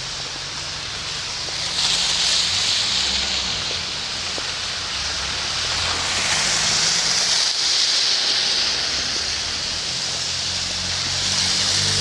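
Cars passing on a wet, slushy street: tyre hiss that swells about two seconds in and again several times, over a low engine hum.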